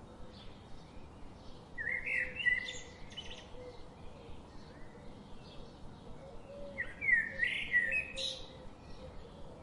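Songbirds singing: two loud warbling song phrases, each a second or more long, about 2 seconds in and again about 7 seconds in, with fainter chirps from other birds in between.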